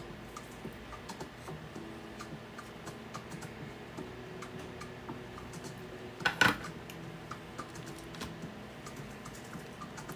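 Light clicks and taps of small tools and parts being handled on a soldering workbench, with a louder clatter about six seconds in.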